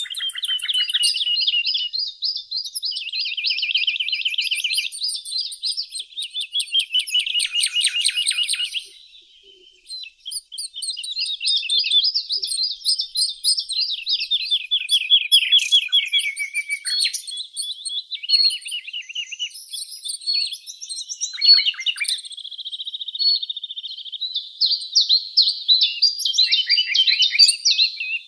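A songbird singing long, rapid trilled phrases, one after another with only short breaks and a brief lull about a third of the way through.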